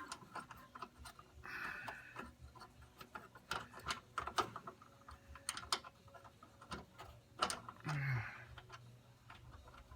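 Scattered light clicks and taps of small metal parts and a wrench, as a nut is fiddled onto the snow blower's carburetor, with two brief scuffs about one and a half and eight seconds in.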